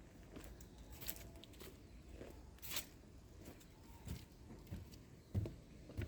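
Faint, scattered crunches and small clicks of a street cat eating.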